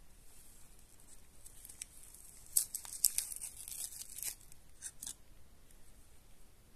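Foil sterile pouch of a surgical scalpel blade being torn open by gloved hands: a run of sharp crackling and crinkling about two and a half seconds in, lasting some two and a half seconds, with a few lighter ticks before it.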